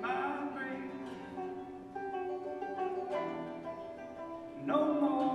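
Acoustic folk band of clawhammer banjo, acoustic guitar, violin and bass clarinet playing an instrumental passage, with plucked guitar and banjo notes under held melody notes. A louder note swells in near the end.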